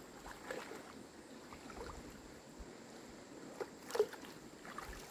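Shallow stream water sloshing and splashing softly, with a few small splashes and a louder one about four seconds in.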